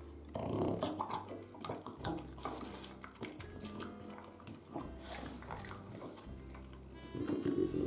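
French bulldog chewing and smacking on a banana, with many short wet clicks of jaws and lips. Background music with low bass notes underneath.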